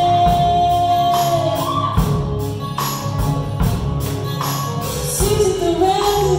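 Live band music: a woman sings, holding one long note for the first second or so, over acoustic and electric guitars and a drum kit keeping a steady beat.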